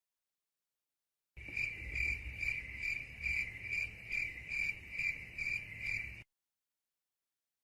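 Crickets chirping, the stock meme sound effect for awkward silence: a regular chirp about two and a half times a second over a low rumble, starting about a second and a half in and cutting off suddenly near the end.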